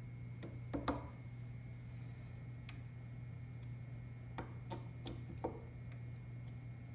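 Light metallic clicks and ticks of a small screwdriver working the screws of a rifle scope's mounting rings: a pair about a second in, then four more spread over the middle. A steady low hum runs underneath.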